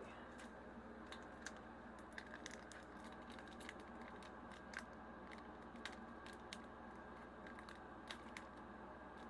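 Faint crinkling and scattered small ticks of a foil booster pack's wrapper being worked open by hand.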